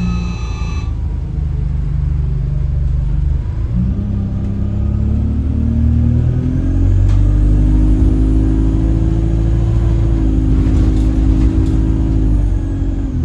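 Alexander Dennis Enviro 200 bus driving, with a steady engine and drivetrain drone whose pitch shifts about four seconds in. From about halfway a horn-like hum of several steady tones comes in, holds, and fades near the end. This is the strange noise the owner suspects is coming from the gearbox, with the bus feeling sluggish.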